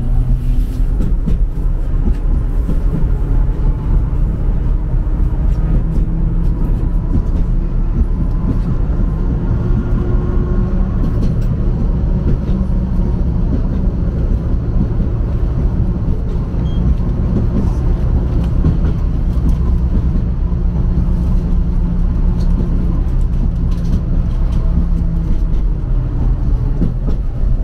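Steady low rumble of a tram in motion, heard from inside the passenger cabin: wheels running on the rails and the car's running gear.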